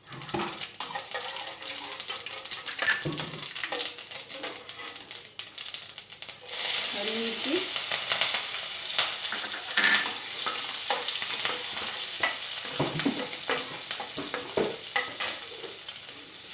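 Hot mustard oil sizzling in a stainless steel kadhai as mustard seeds, minced garlic and sliced green chillies fry for a tadka, with the clicks and scrapes of a metal slotted spatula stirring them. About six and a half seconds in, the sizzle jumps suddenly louder as the chillies go into the oil.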